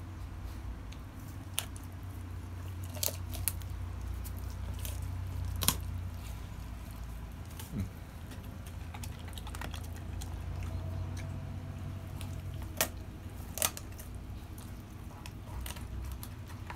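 A Central Asian Shepherd Dog (Alabai) eating raw chicken carcasses: wet chewing with several sharp cracks as it bites into the bones, over a steady low hum.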